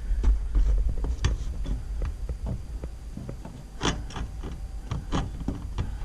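Hand saw starting a cut in a pipe: irregular short scraping strokes and knocks as the blade marks the cut.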